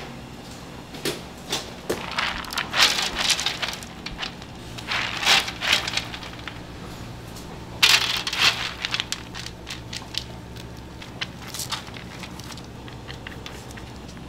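Wet chopped nuts tipped from a plastic colander onto a parchment-lined metal tray, the pieces pattering down in clusters of small clicks, loudest about eight seconds in, over a steady low hum.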